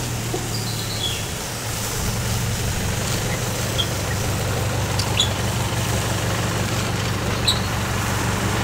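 A vehicle engine idling with a steady low hum. A few light clicks, likely metal tongs, are heard over it.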